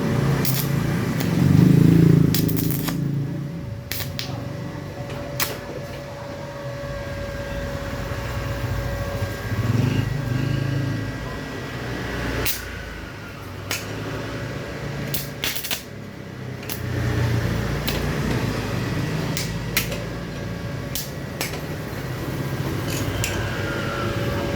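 Mini stick welder being tried out: scattered sharp clicks and crackles as the electrode is struck against the workpiece to start an arc, over a steady thin hum from the machine.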